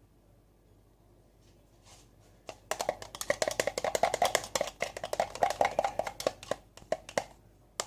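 Stirring stick clicking rapidly against the inside of a glass while mixing dish soap and salt into slime. It starts about two and a half seconds in, runs as many quick taps a second, and thins out near the end.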